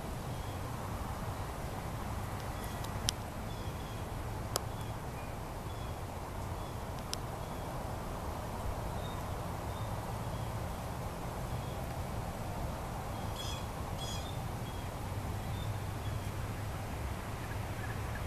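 Outdoor background of a steady low rumble with faint bird chirps recurring throughout and two stronger chirps about two-thirds of the way through. A few sharp clicks sound between about 3 and 7 seconds in.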